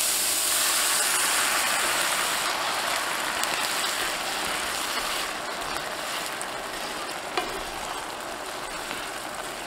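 Beef stock sizzling in a hot cast iron skillet of shallots, garlic and capers as tongs stir it, the hiss fading gradually as the liquid comes down toward a simmer. One light knock about seven seconds in.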